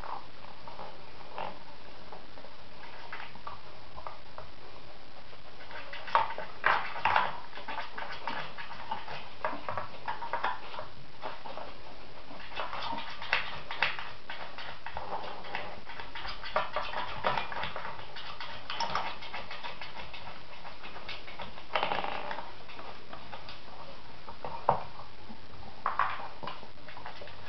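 Dogs nosing and pawing at a wooden dog puzzle toy: irregular clacks and knocks as its wooden knobs and plastic cups are shifted, over a steady background hiss.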